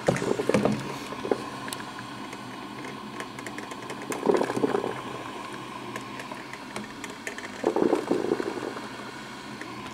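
Black & Decker drip coffee maker brewing: a steady hiss with three louder bursts of gurgling a few seconds apart.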